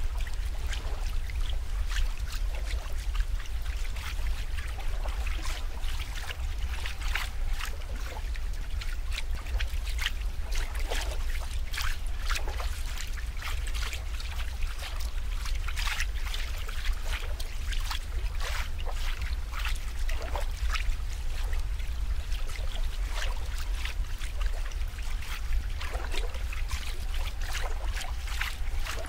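Water trickling and splashing, with many irregular little plips and bubbling drops, over a steady low hum.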